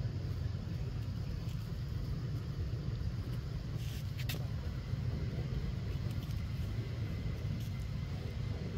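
A steady low rumble, with a couple of short clicks about four seconds in.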